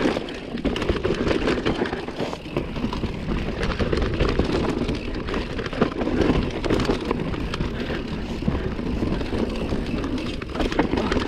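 Mountain bike descending a dirt trail: continuous tyre noise on the ground with the bike clattering over bumps, many small knocks throughout.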